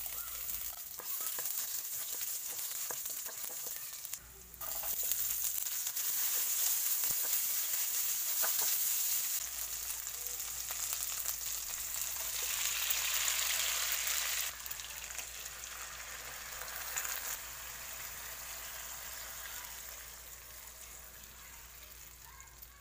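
Garlic and then onion rings sizzling in hot oil in a wok, with a brief break about four seconds in. The sizzle is loudest when the seared pork and marinade go into the pan, then drops and dies down near the end.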